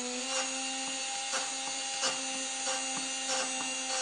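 Dremel rotary tool with a grinding stone running at a steady pitch, its speed set through a variac, with a brief grinding scrape about every two-thirds of a second as it is pressed down onto one bandsaw blade tooth after another.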